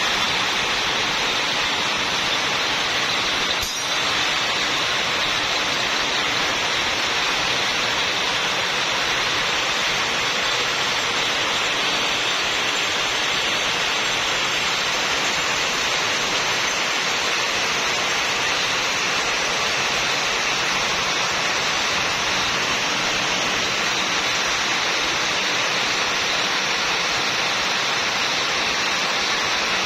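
Rows of belt-driven yarn-winding machines running together: a steady, even rushing noise with no distinct beat or tone.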